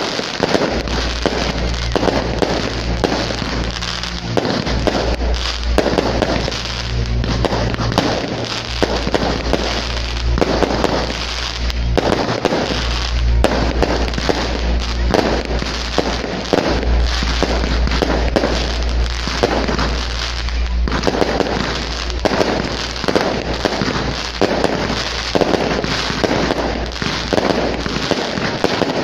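Fireworks display: shells bursting and crackling in quick succession throughout, over music with a deep held bass.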